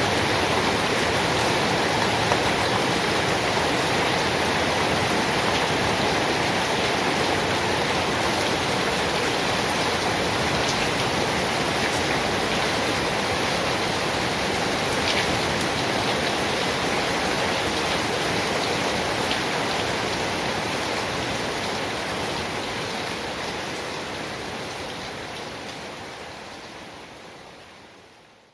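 Steady rain, a dense even hiss with a few sharper drop taps, that fades out over the last several seconds.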